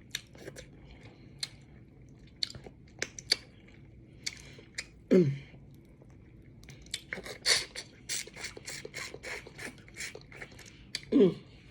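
A person chewing a bite of crab kicker close to the microphone: wet mouth clicks and smacks, scattered at first and coming thick and fast about seven to ten seconds in.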